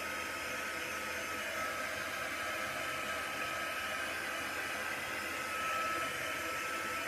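Handheld craft heat gun blowing steadily: an even fan rush with a steady high whine.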